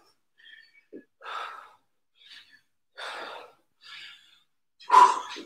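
A man breathing hard from exertion during a squat-and-twist exercise: a series of short, forceful exhalations about once a second, the loudest one near the end.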